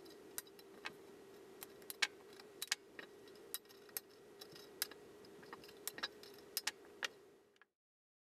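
Metal shears snipping the edge of a Zildjian ZBT bronze cymbal to trim away a cracked section. The blades make a string of sharp, irregular metallic clicks over a steady faint hum, and the sound stops suddenly near the end.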